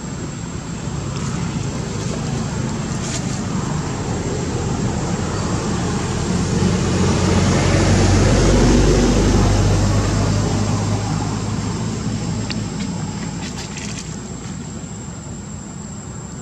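A motor vehicle passing by: its engine hum grows louder to a peak about eight seconds in, then fades away.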